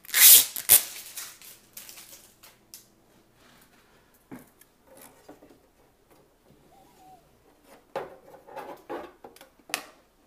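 Protective film being peeled off an acrylic window panel, a loud crackling rip, then after a pause a run of light plastic clicks and knocks as the acrylic panel is handled against the 3D printer's side frame.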